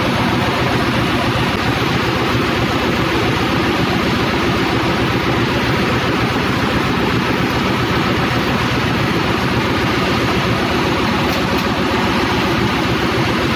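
Steady, loud drone of running machinery in a ship's engine room, with a low hum under an even roar that does not change. The main engine itself is stopped for overhaul, so the noise comes from other running plant.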